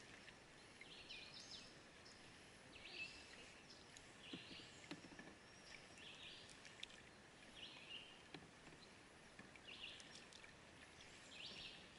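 Near silence, with a faint high chirp from a small animal repeating about once a second, and a few light clicks.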